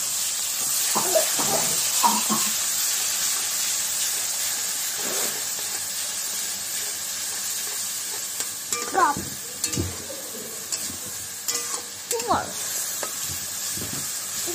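Onion, ginger, garlic and tomato paste sizzling in oil and ghee in a kadai, a steady hiss, while a metal spatula scrapes and stirs them against the pan every few seconds.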